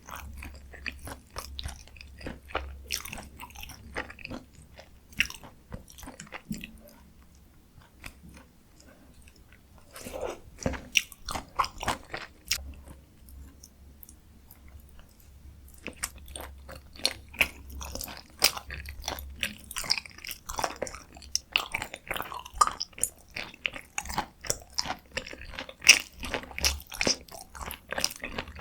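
Close-miked chewing and mouth sounds of someone eating dakgalbi, spicy stir-fried chicken: wet smacks and clicks. It goes quieter for a few seconds about a third of the way in and again around the middle.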